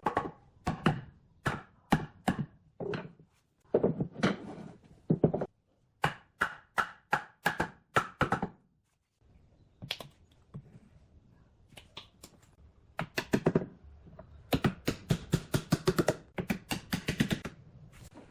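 Repeated sharp knocks of a tool striking wood, in runs of quick blows, with a pause about halfway through and a fast flurry near the end.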